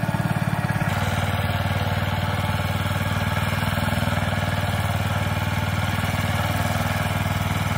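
Small single-axle walk-behind power tiller's engine running steadily as its rotary blades till the soil, a fast even pulsing, with a slight change in the sound about a second in.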